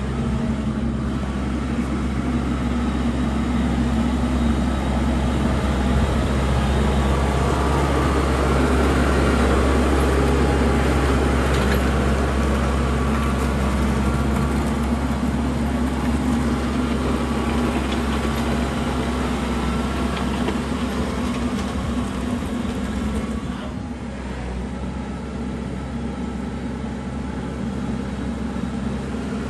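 Kubota compact tractor's diesel engine running steadily as it pulls a rear box blade over crushed asphalt. The sound swells louder toward the middle, eases off, and drops noticeably about three-quarters of the way through.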